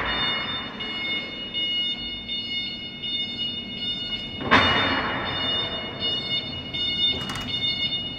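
ES 3000 battery-electric shunting locomotive moving slowly along the depot track, with a steady high-pitched electronic tone sounding the whole time. A sudden loud burst of noise comes about halfway through.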